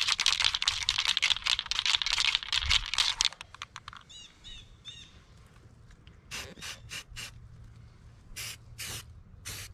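Aerosol can of etching primer shaken hard, its mixing ball rattling rapidly for about three seconds, then a string of short hissing spray bursts from about six seconds in as primer is dusted onto a sanded paint chip on bare metal.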